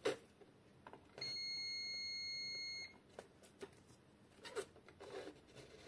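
DM-85T digital multimeter's continuity buzzer sounding one steady, high beep of about a second and a half as its probes close the circuit through the power cord and the newly fitted fuse: the connection is good. Faint clicks of the probe tips on the plug pins come before and after.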